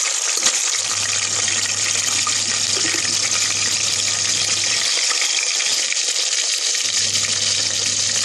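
Ginger-garlic paste frying in hot oil in a pressure cooker, a steady sizzling hiss. There is a single click about half a second in.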